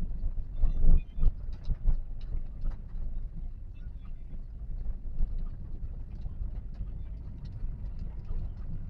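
Inside a Toyota Calya driving in traffic: a steady low road and engine rumble, with a few louder bumps about a second in and scattered light ticks throughout.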